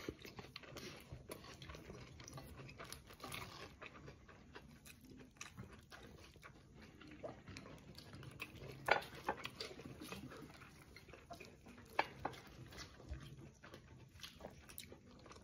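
Faint chewing, with small scattered clicks and ticks from fingers picking apart fried fish and rice on a plate. A few sharper clicks stand out, about nine and twelve seconds in.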